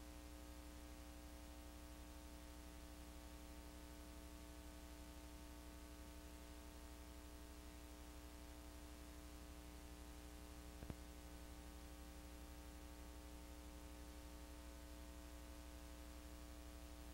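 Near silence: a faint steady electrical hum with hiss, broken once by a single small click about eleven seconds in.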